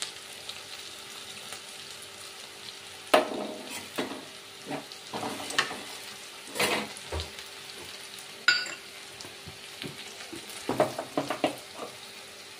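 Okra frying in oil in a metal kadai, a steady sizzle, with a spatula stirring and scraping against the pan in bursts of strokes from about three seconds in and again near the end. One sharp clink of the spatula on the pan comes midway.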